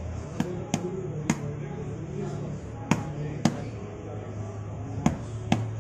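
Sharp, separate clacks of a cooking utensil striking a metal pot or pan, about seven at uneven intervals, over a low steady hum and background voices.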